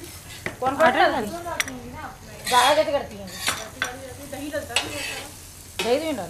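A spoon stirring and scraping food in a metal pan over the fire, with frying sizzle and occasional clinks of the spoon against the pan.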